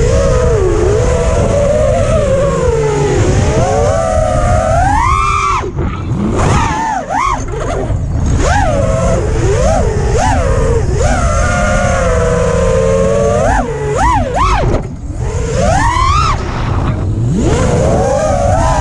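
FPV quadcopter's four Ethix V4 1750kv brushless motors whining in flight, the pitch swooping up and down sharply with each throttle punch and dive, and briefly dropping away twice on throttle cuts, over a low rush of wind noise.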